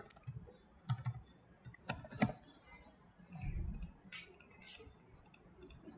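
Quiet computer keyboard typing: an irregular run of single keystrokes as a short word is typed in. There is a brief low rumble about halfway through.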